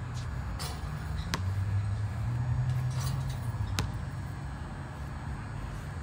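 Outdoor background noise: a steady low rumble that swells for a couple of seconds in the middle, with a few short sharp knocks scattered through it.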